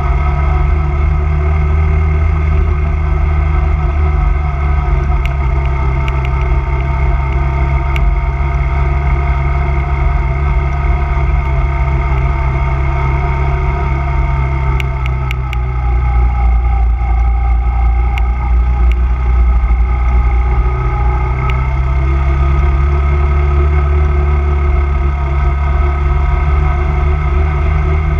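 Honda 250cc quad bike's single-cylinder four-stroke engine running steadily at a cruising pace. The engine note drops about halfway through and climbs back a few seconds later, with a few faint ticks and clicks.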